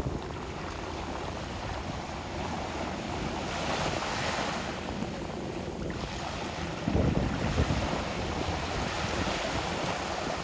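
Ocean waves washing onto the shore in a continuous surf wash, with wind buffeting the microphone. One wash swells about four seconds in, and a louder low gust of wind rumble comes about seven seconds in.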